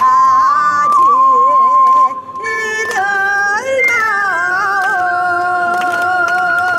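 Ocarina playing a slow trot melody over a backing track through stage speakers: it holds a long note, breaks briefly about two seconds in, climbs through a short phrase, then settles on another long held note that closes the tune.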